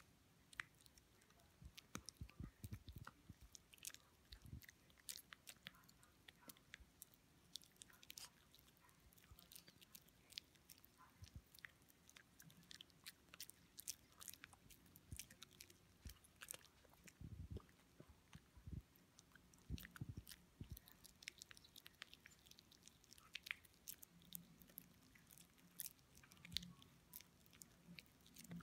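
A poodle chewing and biting on a snack: an irregular run of many quick, sharp clicks and crunches of its teeth, with a few duller low thuds.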